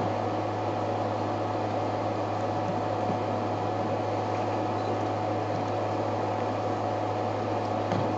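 Steady low hum with hiss and a thin, constant high tone, unchanging throughout; a faint knock near the end.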